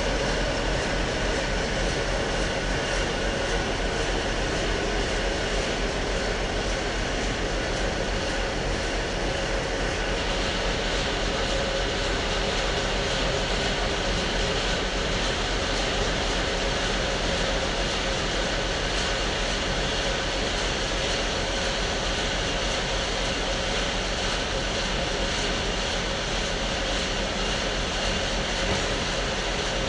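Sawmill saw and its drive motor running steadily, a constant loud mechanical hiss with a few steady tones. About ten seconds in, the high hiss grows stronger.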